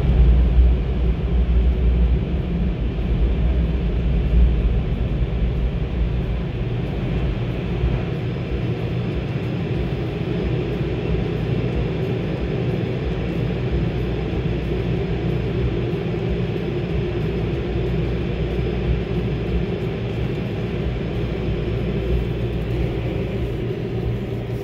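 Steady vehicle rumble heard from inside a car's cabin as it sits at the car wash exit and then rolls out. The deep low rumble is strongest for the first several seconds, then eases to a lighter, even running noise.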